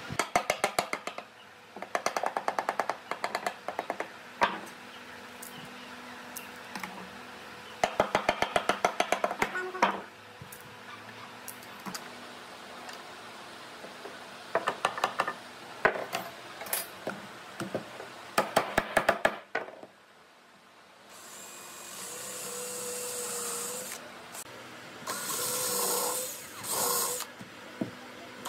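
Quick-release bar clamps ratcheting tight: several short runs of rapid clicks over the first twenty seconds. Then a Hitachi cordless drill runs in bursts, its motor pitch wavering, as it bores holes into pine boards.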